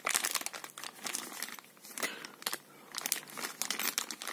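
Clear plastic parts bag crinkling irregularly as it is handled and turned in the hand.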